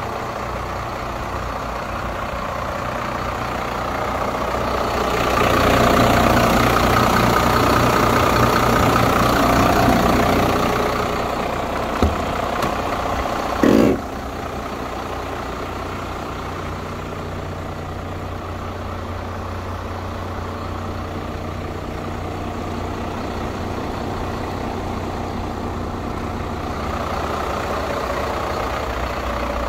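Iveco Trakker hooklift truck's diesel engine idling steadily. It swells louder for several seconds about a quarter of the way in, and there are two short knocks near the middle.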